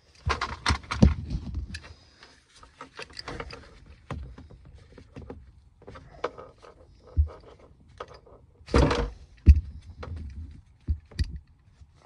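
Seatbelt webbing, metal fittings and plastic pillar trim being handled during fitting in a car: irregular clicks, knocks and rustling, with the sharpest knocks near the start, about three-quarters through and near the end.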